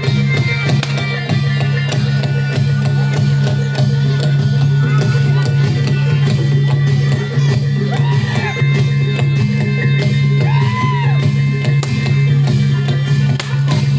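Live reog / jaranan troupe music: percussion beating in a steady, driving rhythm over a sustained low drone. Two short rising-then-falling melodic phrases come about eight and ten seconds in.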